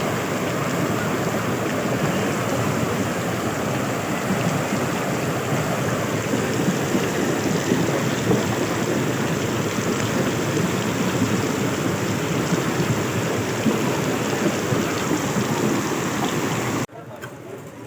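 Steady, loud rush of water from floodwater or heavy rain, with no pitch or rhythm. It cuts off suddenly near the end to a much quieter background.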